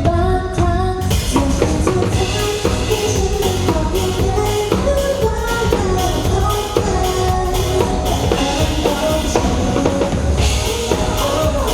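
Pop song playing loudly through a venue PA, driven by a full drum kit with kick drum and snare under a pitched melody.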